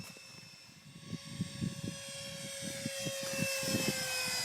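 Radio-controlled A320 model airliner's electric ducted fans whining in flight. The steady high tone grows louder toward the end and dips slightly in pitch as the plane passes.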